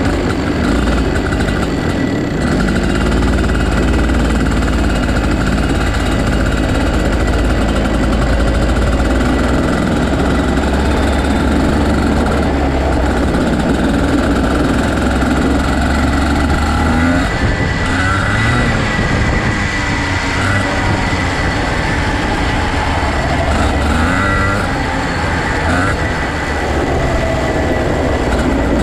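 Racing go-kart engines running hard on a dirt track, the revs rising and falling as the karts come on and off the throttle.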